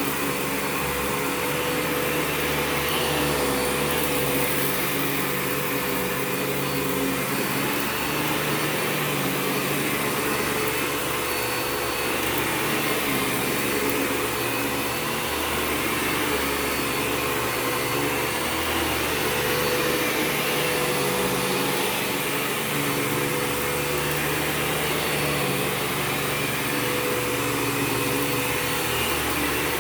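Eureka TheBoss 4D upright vacuum cleaner running steadily while vacuuming carpet: a constant motor whine over airflow noise, with small swells in the low rumble as it moves.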